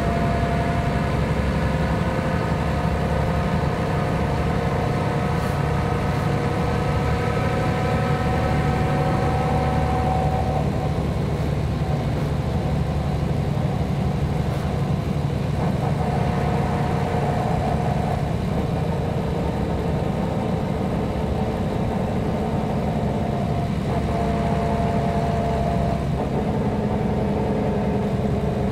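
Mercedes-Benz O 405 G articulated city bus's horizontal six-cylinder diesel idling steadily, with a higher whine that drops out and comes back a few times.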